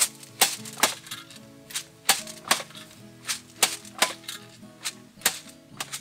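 Hand jab planter (matraca) clacking as beans are sown: sharp clacks in quick groups of about three, a new group roughly every second and a half, over background music.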